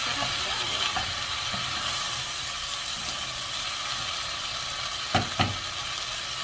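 Okra, onion and tomato sizzling in a hot non-stick saucepan as they are stir-fried with a wooden spoon, a steady frying hiss. Two sharp knocks come close together about five seconds in.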